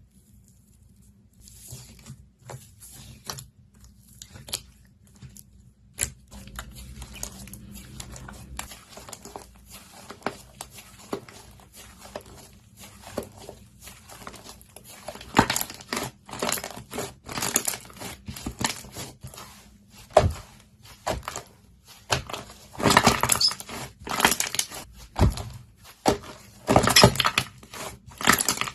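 Slime being squeezed, stretched and pressed by hand, giving irregular sticky clicks and crackles. They are sparse at first and grow denser and louder about halfway through.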